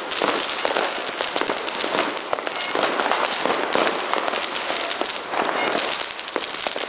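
Many fireworks and firecrackers going off at once: a dense, unbroken crackle of small pops and bangs.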